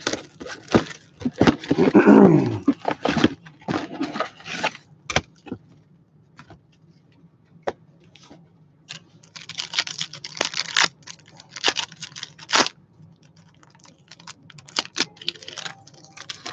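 A box of trading-card packs being opened by hand: wrapper crinkling, cardboard tearing and packs rustling, with scattered clicks. The loudest burst comes about two seconds in, and a stretch of dense crinkling comes later.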